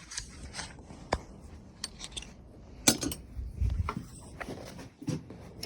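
Metal hand tools clinking and knocking as they are handled, a string of scattered sharp clicks with the loudest knock about three seconds in.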